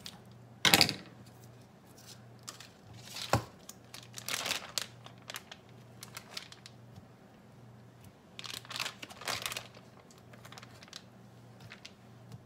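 Plastic bacon package crinkling in bursts as raw bacon slices are pulled out of it, with a sharp clack less than a second in, the loudest sound, and another sharp click a few seconds later.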